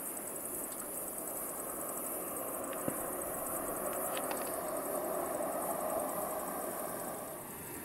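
Steady high-pitched chirring of insects in summer grass, under a distant engine rumble that swells over a few seconds and fades near the end. A single sharp click about three seconds in.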